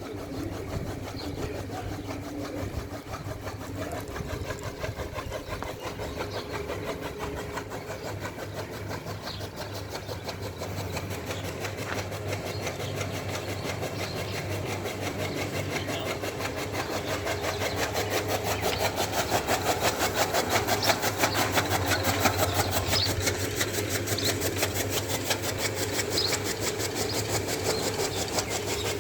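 An engine running steadily with a fast, even beat, growing somewhat louder past the middle.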